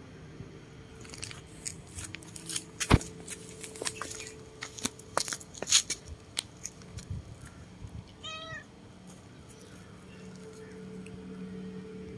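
Cat meowing once, a short call about eight seconds in. Before it comes a run of sharp clicks and taps, the loudest sounds here, over a faint steady hum.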